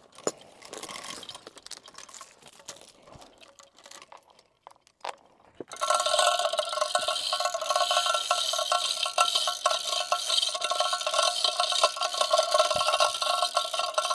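Steel chain clinking and rattling as it is handled. About six seconds in, a steady sound with several held tones starts abruptly and runs on.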